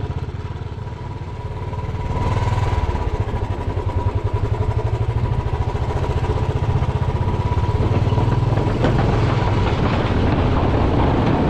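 Motorcycle engine running under way, with a rapid steady exhaust pulse that picks up about two seconds in. Near the end the tyres clatter over the planks of a bridge deck.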